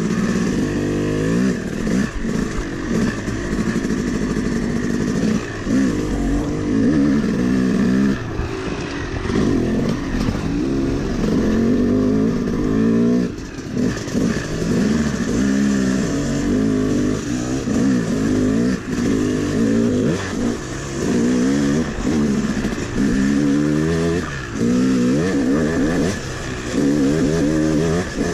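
Yamaha YZ250 two-stroke dirt bike engine under way, its revs rising and falling every second or two as the throttle is opened and shut on a steep, rutted downhill trail.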